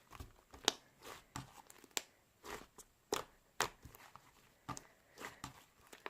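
Fluffy slime being pressed and stretched by hand, giving irregular sharp pops and crackles with short squishy swishes, a few each second.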